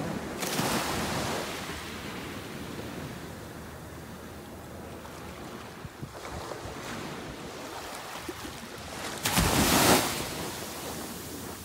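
Small ocean waves breaking and washing up a sand beach, a steady hiss of surf. A softer wash comes just after the start, and a bigger wave breaks with the loudest crash about nine seconds in.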